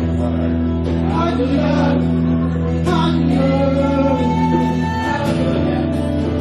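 Worship music with singing over sustained keyboard and guitar chords.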